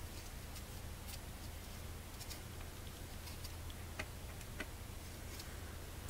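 Faint, scattered light clicks as a car blower motor with its squirrel-cage fan is handled and turned over, over a steady low hum.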